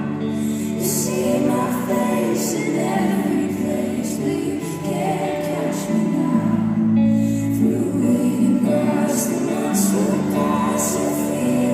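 Live pop song: a female lead vocalist singing with several female backing singers harmonising, over band accompaniment.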